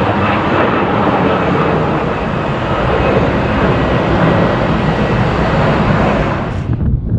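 Twin-turbofan Airbus A330 at takeoff thrust, climbing away: a loud, steady jet engine noise. Near the end it cuts off abruptly to wind buffeting the microphone.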